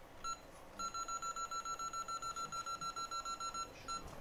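Electronic beeping: one short beep, then a rapid run of short beeps, about six a second, for about three seconds, then one more short beep.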